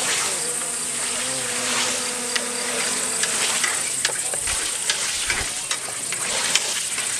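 Several hand scythes swishing through tall meadow grass in short, irregular strokes, over a steady high chirring of meadow insects.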